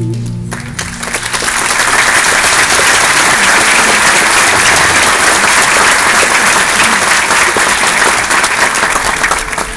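Audience applauding: the last notes of the music die away at the start, the clapping builds to a steady, full applause within about a second and eases off slightly near the end.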